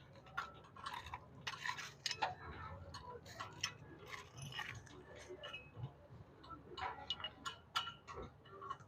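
Scattered light clicks and clinks, irregular and close together, of hand tools and parts being handled.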